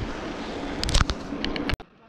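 Wind buffeting the microphone of a camera on a moving bicycle, with road rumble underneath and a few sharp clicks and rattles from the bike in the second half. The sound cuts off suddenly near the end.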